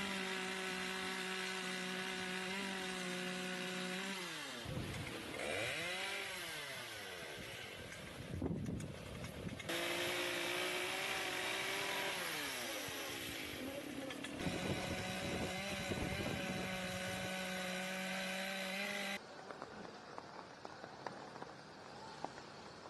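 Chainsaw running and cutting, its engine pitch sagging and recovering as it bites into wood, then cutting off a few seconds before the end.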